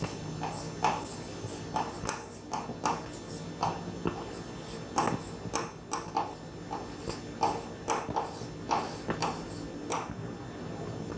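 A pen writing on a whiteboard: irregular light taps and short scratches of the tip, a few a second, as words are written out.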